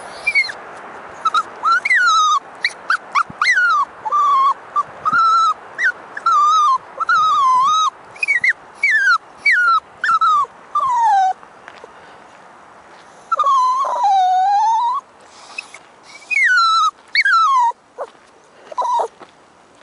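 Toy poodle puppy whining and crying in a run of short, high calls that mostly slide down in pitch, about two a second. About two-thirds of the way through comes one longer, wavering call, and the calls thin out near the end.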